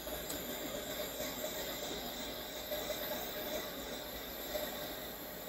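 Hot air rework station blowing a steady hiss of air through its open handpiece, used without a nozzle to heat a phone circuit board.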